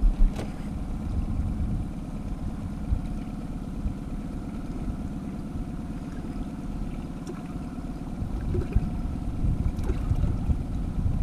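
Boat motor running steadily at low trolling speed, with wind buffeting the microphone.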